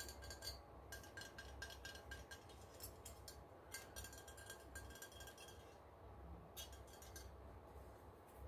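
Fingernails tapping quickly on a glazed ceramic unicorn figurine, in several short runs of light clicks with pauses between them.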